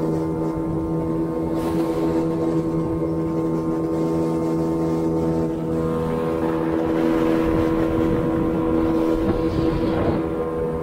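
Boat's outboard motor running steadily at cruising speed, with the rush of water and wake along the hull building from about six seconds in as the boat turns.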